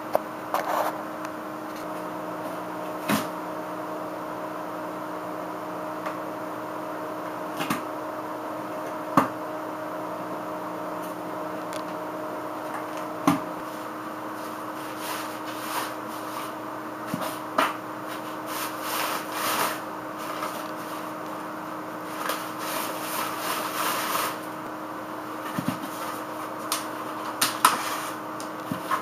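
A cat tearing and chewing at a cardboard box and crumpled brown paper: scattered single scratches and rips, then short runs of crinkling and rustling in the second half, over a steady hum.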